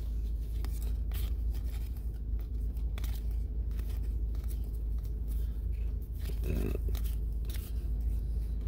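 Baseball trading cards being thumbed through one at a time, with faint slides and clicks of card on card, over a steady low hum.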